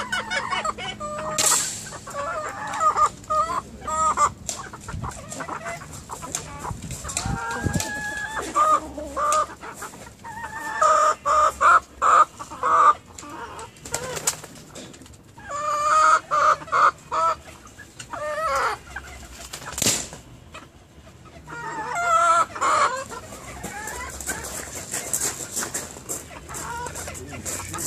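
Chickens clucking on and off in short repeated calls. A few sharp clicks stand out, about a second and a half in, near 7 seconds, and near 20 seconds.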